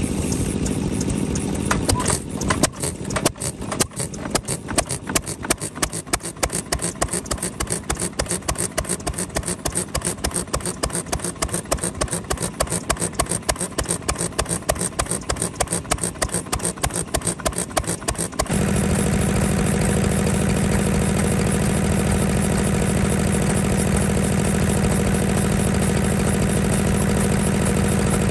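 Antique stationary engine with open flywheels running slowly, each firing beat heard separately, about three a second. About eighteen seconds in it cuts abruptly to the steadier, denser running of a small single-cylinder horizontal diesel engine.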